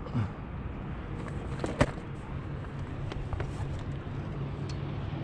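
Steady low hum of a boat motor over water and wind noise, with a few scattered clicks and knocks, the sharpest about two seconds in.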